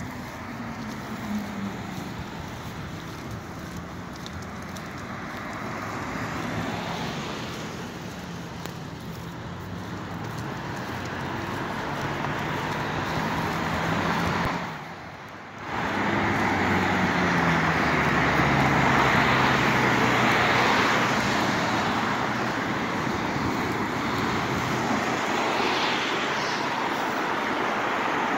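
Road traffic: cars driving past one after another with steady tyre noise, engine tones dropping in pitch as vehicles go by. The sound cuts out for about a second near the middle, then comes back louder.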